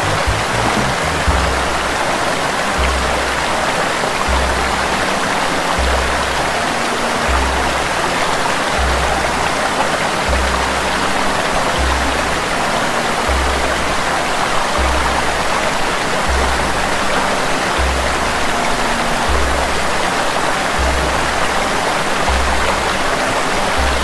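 Water rushing steadily down a small rocky cascade, with background music underneath: a low bass note pulsing about once every one and a half seconds.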